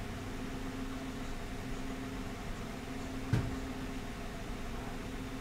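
Steady low hum with background hiss; a single soft knock about three seconds in.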